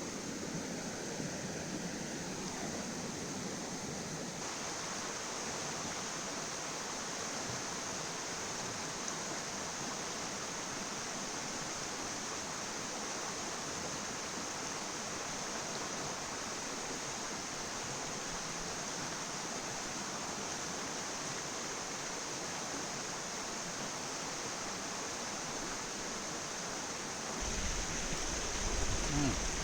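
River water rushing steadily. A low rumble joins near the end.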